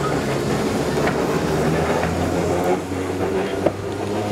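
Glasgow Corporation double-deck electric tram running past at low speed on its rails, a steady low hum with a sharp click near the end.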